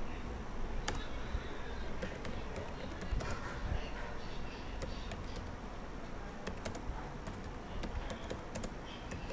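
Typing on a computer keyboard: irregular key clicks in short runs with pauses between them.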